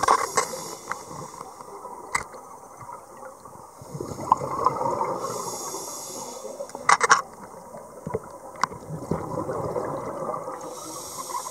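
Underwater sound through a scuba diver's camera housing: the rushing gurgle of regulator exhaust bubbles that swells in bursts, with a few sharp clicks.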